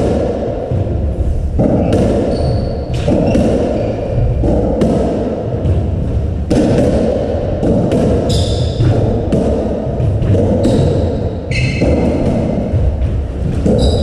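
A racketball rally: the racket hitting the ball and the ball thudding off the court walls and floor about once a second, echoing in the enclosed court. A few short high squeaks, likely court shoes on the wooden floor, come in between the hits.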